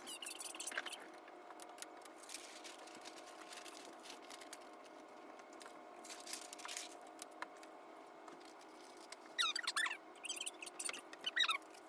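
Classroom sound played at eight times speed: voices turned into brief high squeaky chirps near the end, among short rustles and scattered clicks, over a steady faint hum.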